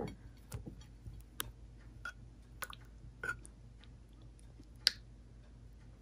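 Faint, scattered light clicks and taps from hands handling toasted hamburger bun halves on a ceramic plate, several in all, the sharpest about five seconds in.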